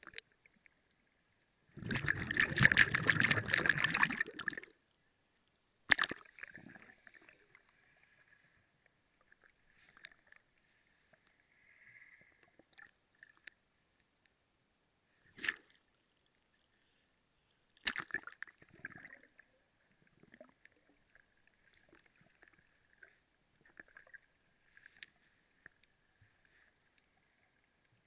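Underwater sound of a snorkeller swimming: a loud rush of water noise about two seconds in that lasts about three seconds, then several sharp clicks and knocks with faint water sounds between.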